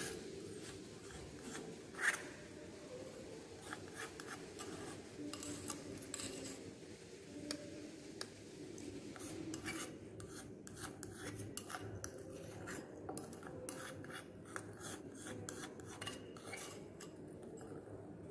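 Stainless steel spatula scraping cream around a porcelain dish and against the inside of a glass jar. It makes a run of short scrapes and clicks, with one louder knock about two seconds in.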